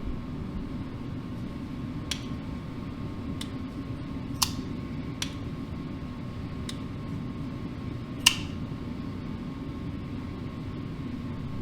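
Sharp, scattered clicks, about six, from a folding knife's blade being worked to check its lockup and play after the pivot was tightened; the loudest comes about eight seconds in. A steady fan hum runs underneath.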